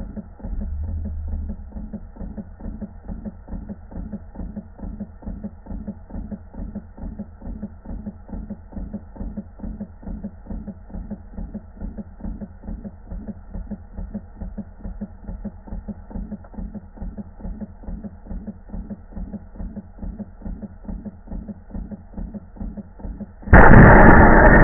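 Small live-steam engine running with a quick, even beat. Near the end, a zip-tied silicone hose union on the steam line blows off, and a sudden, much louder, continuous rush of escaping high-pressure steam takes over.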